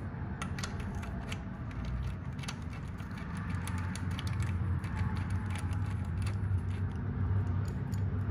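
Small irregular metallic clicks of a hand tool with a socket extension as the mounting bolt of a motorcycle frame slider is screwed into its aluminium bracket, over a steady low hum.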